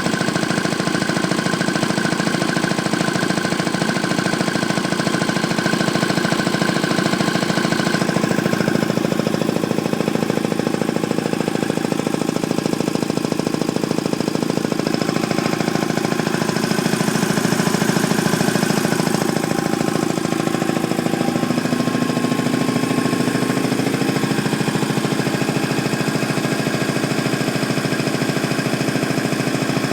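Ingersoll-Rand T-30 two-stage piston air compressor running steadily with a fast, even pulsing beat as it pumps up toward full pressure.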